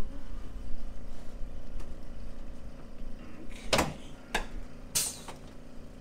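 Three short, sharp knocks about half a second apart in the second half, over a steady low hum.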